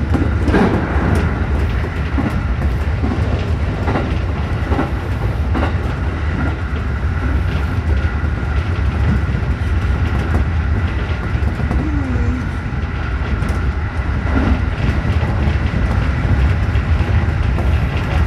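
JR Tokai 211 series electric multiple unit running at speed, heard from inside behind the cab: a steady rumble of wheels on the rails with a constant high hum, and scattered clicks from rail joints. A burst of clicks comes in the first second as the train crosses a short girder bridge.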